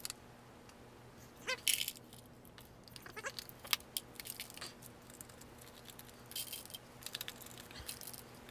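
Small firework stars and burst composition being poured out of a shell casing and handled, giving scattered light clicks and rattles. There are also a few short squeaks that fall in pitch, around the second and the third second and again near the end.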